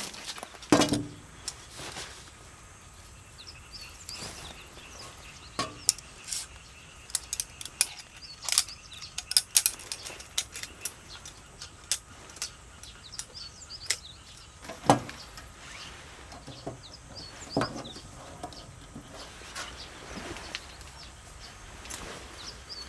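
Camping gear being handled: scattered sharp clicks and clinks of metal and plastic parts, with a louder knock about a second in. Faint bird chirps in the background.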